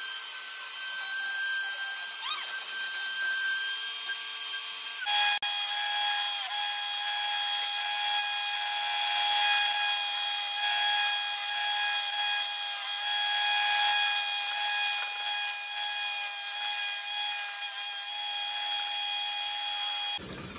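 Small electric power saw running with a steady high whine while cutting plywood. About five seconds in the sound switches to another saw's whine and cutting hiss as a round wooden wheel blank is cut out.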